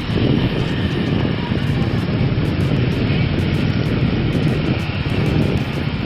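Honda Scoopy scooter's engine running with a steady drone.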